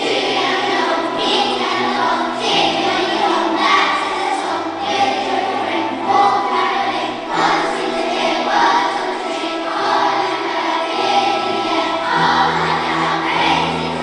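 Primary school children's choir singing with an orchestra accompanying, over held bass notes that change every couple of seconds.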